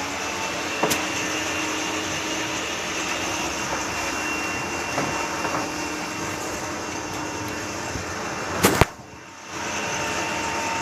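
Steady mechanical hum of workshop background noise, with a few sharp clicks of hand tools; the loudest is a pair near the end, after which the hum drops away briefly.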